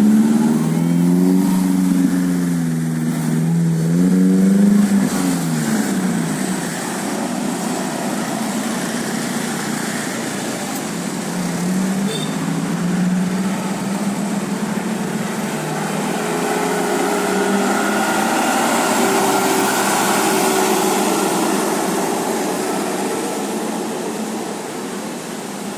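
Large buses driving past on a road, their engines rising and falling in pitch as they rev, with a second pass growing louder around eighteen to twenty-one seconds in.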